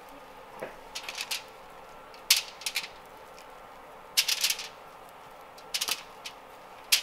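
Asparagus spears being laid down on aluminium foil in a baking pan, the foil rustling and crackling in a few short bursts.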